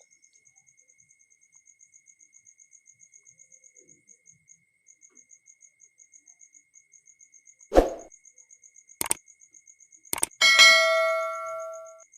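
A thump, then a couple of clicks, then a metal object struck or set down on a hard surface with a clang that rings and fades over about a second and a half. Faint, even, high-pitched chirping, like a cricket, runs underneath throughout.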